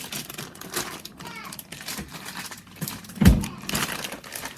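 Clicks and knocks of things being handled on a kitchen counter, with one louder thump about three seconds in.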